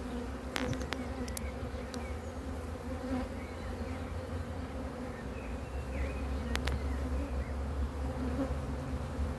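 Honeybees buzzing around an open hive, a steady hum from the colony. A few sharp clicks sound about half a second in, near one and a half seconds and about six and a half seconds in.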